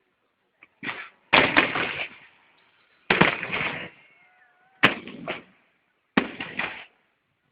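Fireworks display: aerial shells bursting in about five loud volleys, each a quick cluster of sharp cracks with a short, fading rumble, separated by brief gaps.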